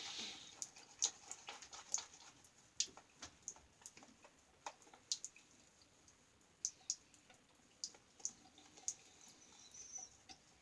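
Crisp, irregular ticks and short rasps, a few a second: a 1901 New Gem single-edge safety razor cutting through lathered stubble.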